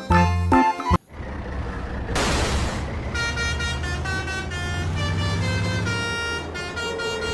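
Bus engine running with a low rumble, a loud burst of air hiss, then a multi-note "telolet" horn tooting a short tune over the engine, after a second of background music.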